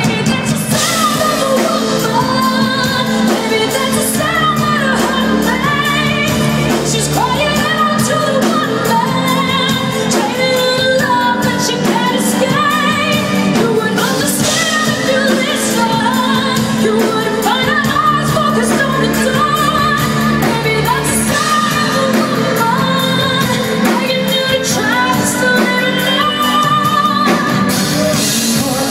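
Live pop music: a woman singing long, wavering notes over the band's accompaniment.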